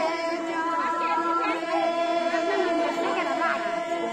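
A group of people singing together in unison, holding long steady notes, with other voices talking over the singing.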